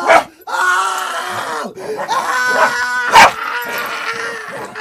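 Pet dog vocalizing in play: long, drawn-out whines, with one sharp, loud bark about three seconds in.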